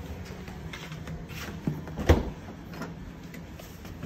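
Tesla Model 3 driver's door being opened and someone climbing in: a few light clicks, then a sharp knock about two seconds in.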